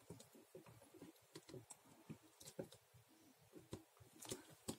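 Faint, scattered clicks and taps of small plastic toy figures being handled, as a Mega Construx He-Man minifigure is fitted onto the Battle Cat figure.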